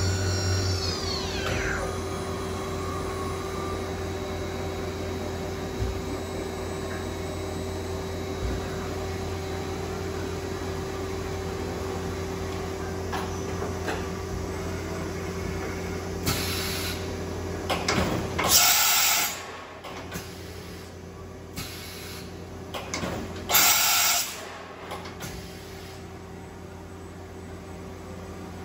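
Quaser MF-400C CNC machining center's spindle winding down in a falling whine over the first second or two, then the machine humming steadily. Two loud rushes of noise come later, the first about two-thirds of the way in and the second near the end.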